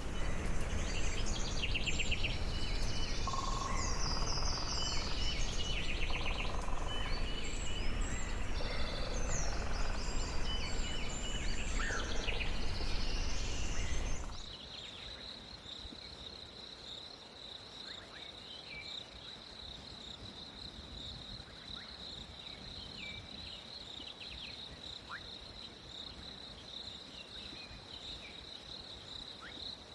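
Several birds chirping and trilling over a low rumble. About fourteen seconds in, this cuts to a quieter recording with a steady high-pitched drone and a few faint chirps.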